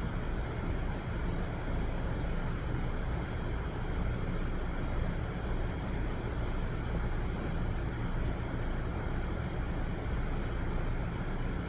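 Steady low rumbling background noise with no change in level, and a few faint ticks.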